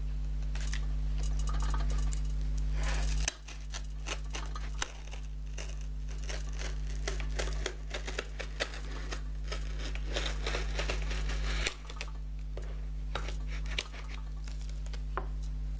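Small sword-shaped letter opener slitting the packing tape on a cardboard parcel: repeated scratchy cutting and tearing of tape and scraping on the cardboard, over a steady low hum.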